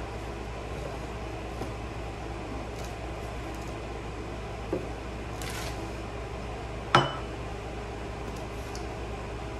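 Small handling noises at a table over a steady low room hum: a brief rustle about five and a half seconds in, then one sharp knock about seven seconds in.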